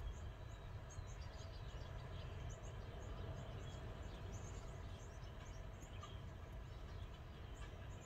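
A flock of small songbirds chirping busily, many short high notes overlapping, over a low steady rumble.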